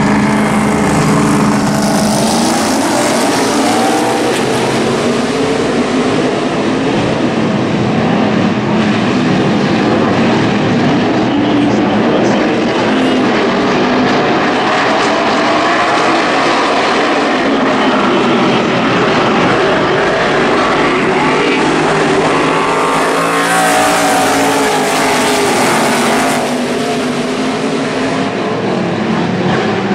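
A pack of NASCAR Truck Series race trucks running at racing speed, their V8 engines blaring continuously with pitch rising and falling as they circle. About three-quarters of the way through the sound swells and brightens as trucks pass close by.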